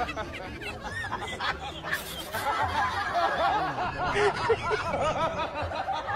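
Several people laughing and giggling at once, many voices overlapping, loudest and densest in the middle.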